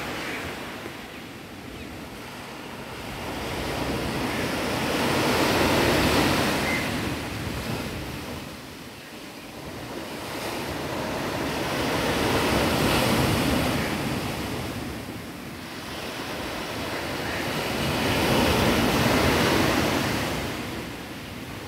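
Sea surf breaking and washing up on a sandy shore against boulders. The rush swells and fades in slow cycles, three times, about every six to seven seconds.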